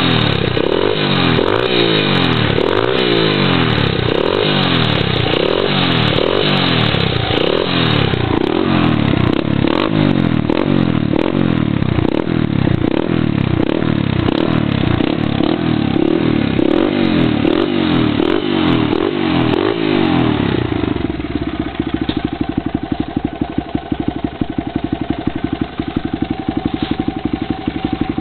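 Honda CRF80F's 80cc four-stroke single with an FMF exhaust, revved in quick throttle blips about once a second, then dropping back to a steady idle near the end.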